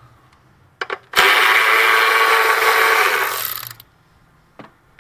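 A handheld power tool with a 10 mm socket runs for about two and a half seconds, starting about a second in, spinning out a fastener that holds a car's washer fluid reservoir. A few small clicks come just before it starts.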